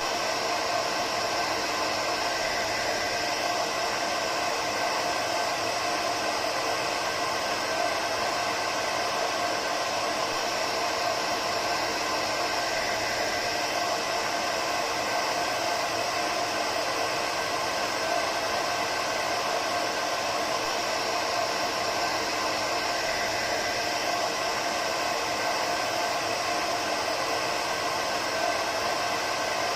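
Hair dryer running steadily: an even rushing of air with a faint steady whine from the motor, used as white noise.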